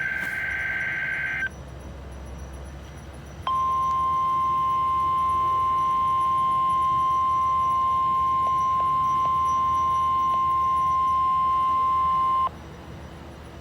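NOAA Weather Radio broadcast of a weekly test. A buzzing digital data burst, the SAME alert header, ends about a second and a half in. About two seconds later the 1050-hertz warning alarm tone sounds as one steady, loud, high beep for about nine seconds and then cuts off abruptly. This tone is the signal that switches on weather-alert receivers and normally comes before an emergency message.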